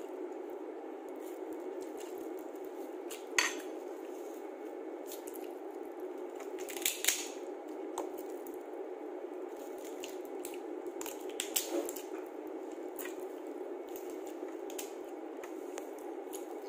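Cooked crab and shrimp shells being cracked and picked apart by hand while eating. There are a few sharp cracks and clicks, loudest about 3.5, 7 and 11.5 seconds in, over a steady background hum.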